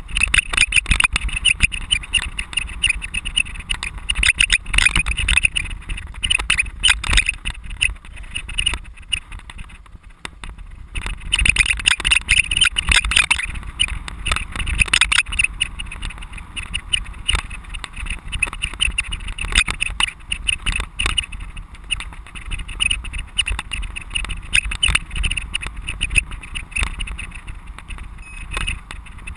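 Constant rattling and knocking of a camera on a cyclocross bike jolting over bumpy grass and dirt, with wind rushing past. It eases briefly about ten seconds in.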